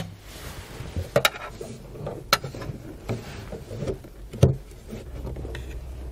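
Sharp plastic clicks and light knocks, a second or two apart, with rustling of wires and trim felt, as a screwdriver presses the release tab on a taillight wiring connector and the connector is worked loose.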